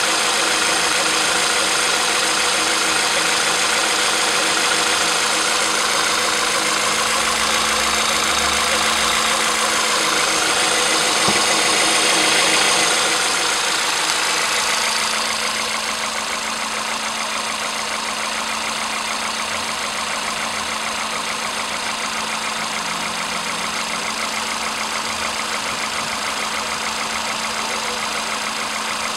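Volkswagen Polo sedan's 1.6-litre CFNA four-cylinder petrol engine idling warm, a steady run with a fine, rapid ticking, getting a little quieter about halfway through. The owner suspects a knock, while a dealer found nothing wrong.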